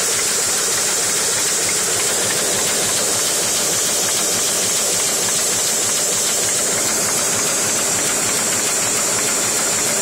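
Printing press running at a steady pace, printing book covers: a continuous mechanical clatter with a steady high hiss on top.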